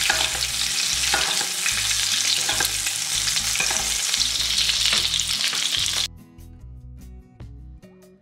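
Trout fillet frying in butter and oil, sizzling steadily while a spoon scoops the hot fat over it, with a few light knocks of the spoon on the pan. The sizzle cuts off about six seconds in, leaving soft background music.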